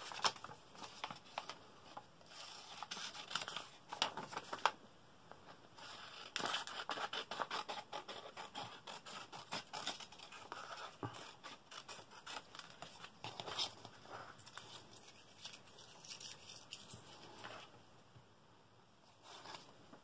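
Scissors snipping through patterned paper, with the paper rustling and crackling as it is handled between cuts, in irregular spurts.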